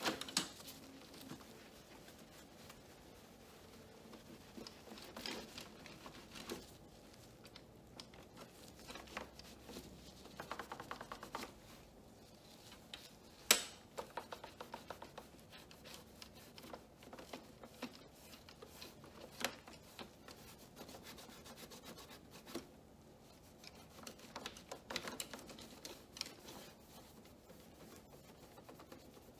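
A soft cloth rubbing and wiping over a printer's plastic control panel and scanner glass, in uneven strokes with small scuffs and ticks. There is one sharper click about halfway through.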